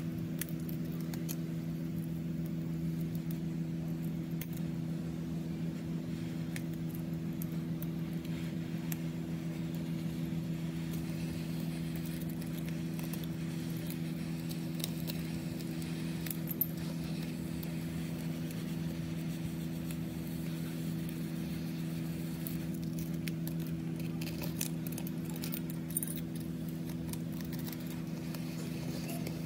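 Steady low electrical hum from bench equipment, with scattered light clicks and scrapes of small repair tools on a phone.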